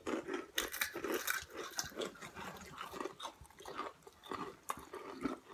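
Crunching and chewing of Hot Cheetos, several mouths biting into the crisp puffed snacks at once, in irregular crackly crunches.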